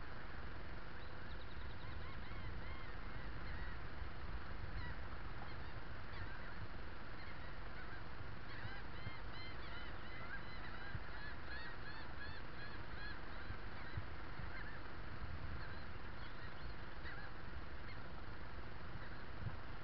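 Birds calling again and again in many short, high chirping notes, busiest from about nine seconds in, over a steady low rumble.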